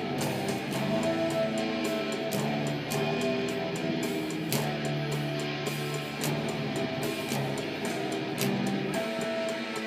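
Five-string fretless bass playing a melodic metal line, some notes gliding up and down in slides, over a full backing mix with sharp regular hits.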